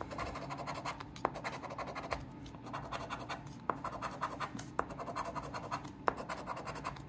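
A coin-style scratcher rubbed quickly back and forth over a scratch-off lottery ticket, scraping off the coating in rapid rasping strokes, with a few short, sharper scrapes.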